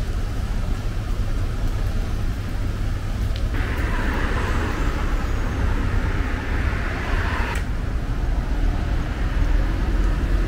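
Steady low rumble of outdoor traffic noise, with a hiss that starts sharply about three and a half seconds in and cuts off about four seconds later.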